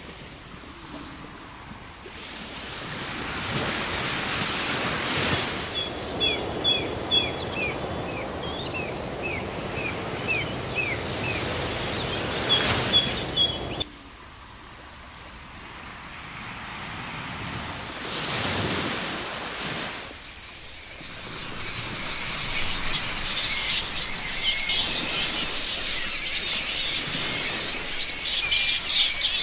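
Sound effects of waves washing in and drawing back on a shore, mixed with bird calls: two short runs of quick repeated chirps, then a busier stretch of chirping near the end. The wave sound cuts off abruptly about halfway through and swells back in, as an edited layer does.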